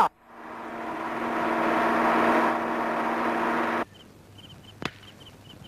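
A lorry's engine drone swelling louder as it approaches in the dark, cut off abruptly about four seconds in. Then night crickets chirping in quick repeated bursts, with one sharp click.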